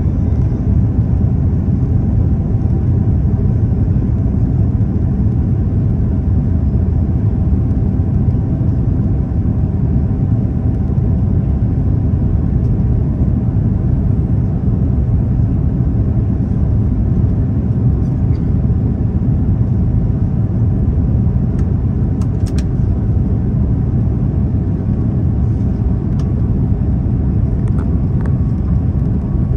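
Steady airliner cabin noise: a loud, even low rumble of the jet engines and airflow, with a faint steady hum above it. A couple of faint ticks come about three-quarters of the way through.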